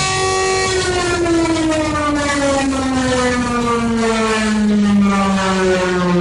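Civil defense siren wailing: it holds a steady pitch for about a second, then slides slowly down over the next five seconds. Near the end a second, higher tone comes in and begins to fall as well.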